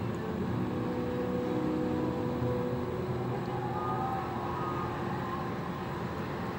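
Steady background hum of distant traffic, with faint held tones over it.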